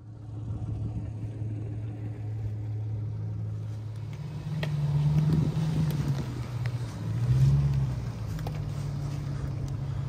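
Jeep Grand Cherokee's engine running as the SUV drives slowly towing a small camping trailer, rising in pitch as it pulls harder about four and a half seconds in and again near eight seconds in. A few light clicks come through.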